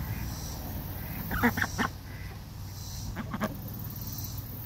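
Young white domestic ducks quacking in short calls, in two clusters: a few about a second and a half in, then a couple more a little past three seconds.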